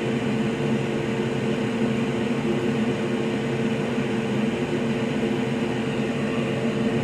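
Steady machine hum with a constant low pitch, unchanging throughout.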